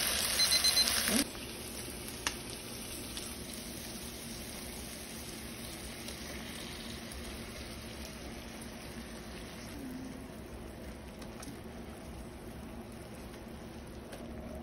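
Chicken pieces sizzling in oil in a cast-iron skillet, loud for about the first second, then dropping suddenly to a steady, quieter sizzle that runs on as teriyaki sauce is added. There is one short click a couple of seconds in.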